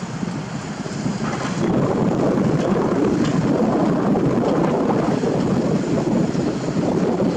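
Diesel engine of a Komatsu PC228 excavator working under load as the bucket digs into rubble and soil, steadying at a higher level about two seconds in. Wind buffets the microphone.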